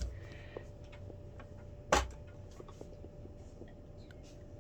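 Scattered light clicks and taps from small plastic parts being handled, with one louder knock about two seconds in, over a faint steady hum.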